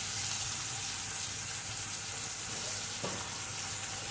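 Freshly sliced onions sizzling steadily in hot oil in a stainless steel pot, the first stage of frying them toward dark brown.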